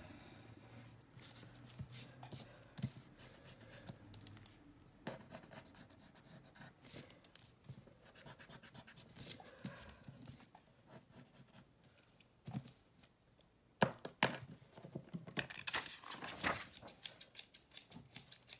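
Paper and pencil craft handling on a tabletop: irregular scratchy strokes, paper rustling and scattered taps, with one sharp tap about fourteen seconds in.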